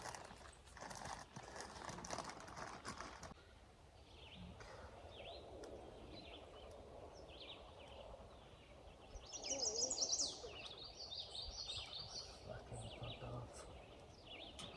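Birds chirping, with a louder run of rapid chirps about ten seconds in. For the first three seconds there is scattered rustling and clicking.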